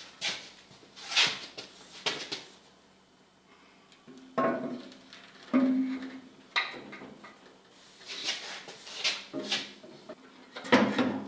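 Metal outboard midsection parts knocking and scraping together as an assembly is lowered into the upper casing and seated. A string of separate clunks, a couple with a brief metallic ring around the middle, and a cluster of knocks near the end.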